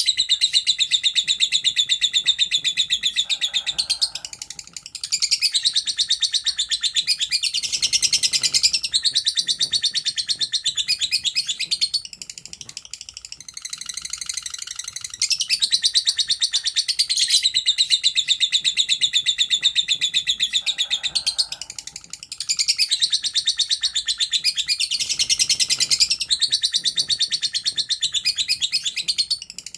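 Lovebird's long, rapid chattering song ('ngekek panjang'): long runs of fast, high-pitched chatter, broken by a few short pauses.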